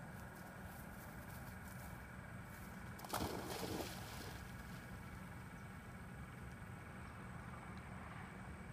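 A Labrador retriever puppy splashes into a pond about three seconds in, leaping after a thrown training bumper, then swims out with little sound.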